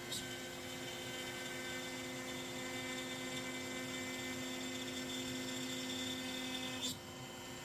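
Longmill MK2 CNC router's spindle motor running with a steady hum and whine while it carves a 3D relief into a wooden board. There is a brief click near the end, after which the hum drops slightly.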